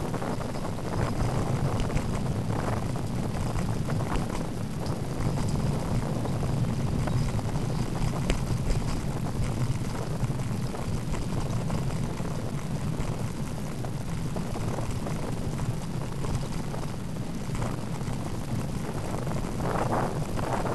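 Steady low rumble of a bicycle's tyres on a tarmac path, with wind buffeting the microphone of the bike-mounted camera and a few small knocks along the way.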